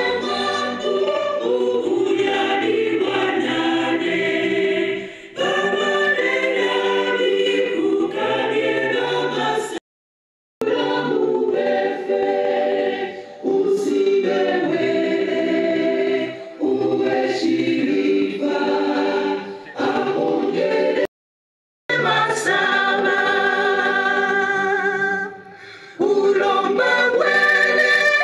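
An anthem sung in unison by a choir and a standing crowd. The singing goes in phrases, and the sound cuts out completely twice for under a second, about a third and two thirds of the way through.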